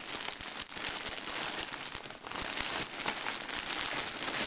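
Plastic parcel packaging, a postal mailer bag and clear polybags, crinkling and rustling as it is handled, a continuous dense crackle.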